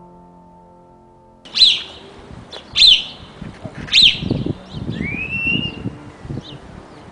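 Soft piano music stops about a second and a half in and gives way to outdoor birdsong. There are three loud, sharp chirps about a second apart, then a rising-and-falling whistled call, over a low background rumble.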